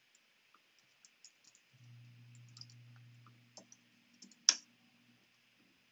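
Scattered light keystrokes on a computer keyboard, with one sharper key click about four and a half seconds in. A low steady hum runs under the middle few seconds.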